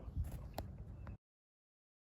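Faint room noise with a light click or two, then the sound cuts off abruptly to dead silence just over a second in.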